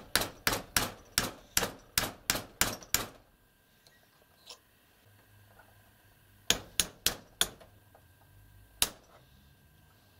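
A mallet tapping on the top of a Stirling 14P rifle bolt held in a vise. There is a quick run of about nine sharp taps, roughly three a second, then a pause, then four more taps and a last single one near the end. The tapping drives the bolt's parts down until the firing pin catches its retaining pin.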